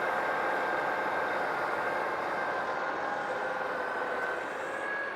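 Portable hydraulic car baler running steadily, a machine noise with a steady whine over it, growing fainter near the end.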